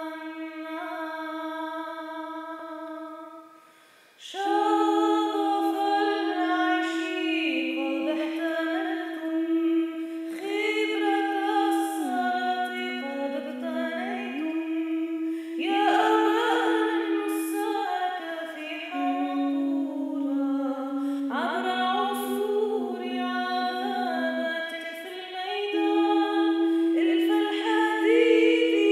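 Unaccompanied Byzantine chant in Arabic: a troparion in the third tone, sung by a woman over a held ison drone from a second woman. The drone sounds alone for about the first four seconds before the melody enters, and it steps down and back up a few times under the chant.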